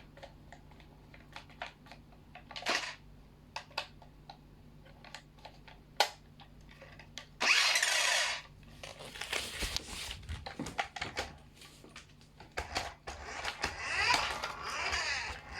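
Clicks and taps from handling a small plastic toy car, then about 7.5 s in a one-second whir of a small electric motor, followed by scratchy rattling mechanical noise as the parts are worked on.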